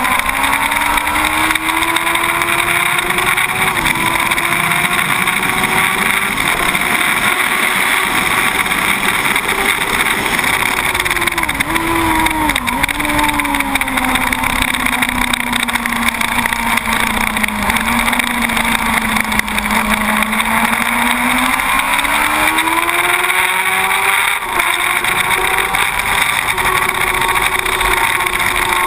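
A 2006 Yamaha YZF-R1 SP's inline-four engine running hard on a track lap. It climbs in pitch with an upshift about four seconds in, blips and dips in the middle, eases down through a long corner, then pulls up again with another gear change near the end, under steady wind rush on the bike-mounted microphone.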